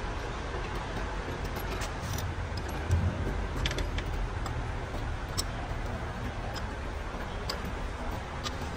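Light metallic clinks and taps of hand tools working on a diesel engine, over a steady low rumble, with one dull thump about three seconds in.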